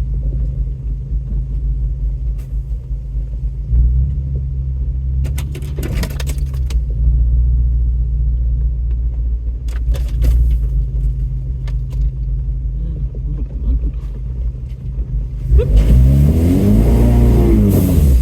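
Off-road truck's engine running at low speed along a rough trail, with scattered knocks and rattles from the body. Near the end the engine revs up and falls back, with a rushing hiss alongside.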